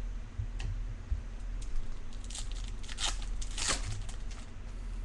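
A baseball card pack's wrapper being torn open and crinkled, with a few sharp ripping strokes between about two and four seconds in, over a low steady hum.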